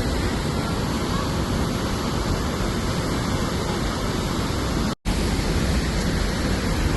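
Steady rush of a waterfall: dense, even water noise that cuts out for an instant about five seconds in.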